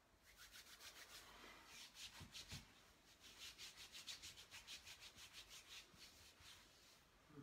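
Faint, brisk rubbing of hands against skin and clothing, in quick hissing strokes about four to five a second, with a short break around two and a half seconds in.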